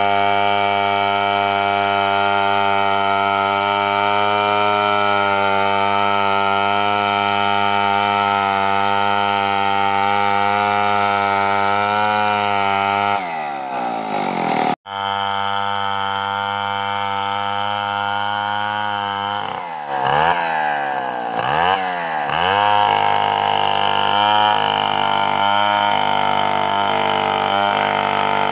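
Two-stroke chainsaw ripping a coconut log lengthwise at high revs, a steady high engine note. About halfway through, its pitch falls away and breaks off briefly. Later the revs rise and fall a few times before the saw settles back into a steady cut.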